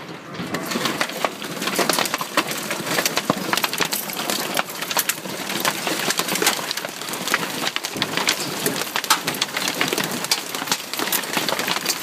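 Large hailstones pelting down hard: a dense, continuous clatter of countless sharp impacts on the ground and on nearby hard surfaces.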